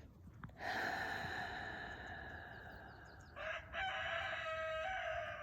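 A long, slow breathy exhale, followed about three seconds in by a rooster crowing, a drawn-out, wavering call.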